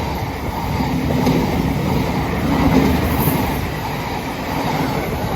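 Class 700 Thameslink electric multiple unit passing on the rails: a steady, loud rumble of wheels and running gear that swells in the middle and eases slightly toward the end.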